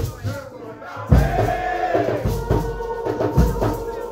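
Nyahbinghi drumming and group chanting: voices come in about a second in with a long held chant over heavy bass-drum strokes roughly a second apart.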